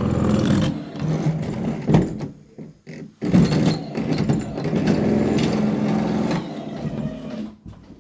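Locksmith's power drill boring through a house door, its motor running with a steady pitch and stopping briefly twice before starting again.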